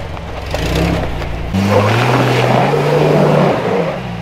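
A lifted Jeep Cherokee's engine revving under load as it climbs a rock ledge. The engine note jumps up about a second and a half in, climbs and holds, then falls away near the end.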